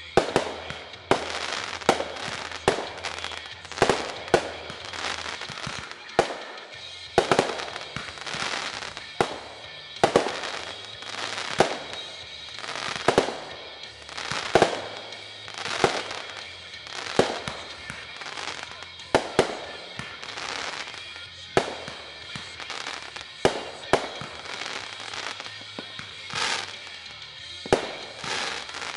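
Fireworks display: aerial shells bursting one after another, about one every second, some in quick pairs, with a rock song playing underneath.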